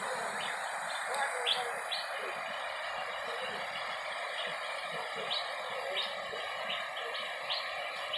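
Steady rush of stream water flowing over rocks, with short high bird chirps repeating every second or so.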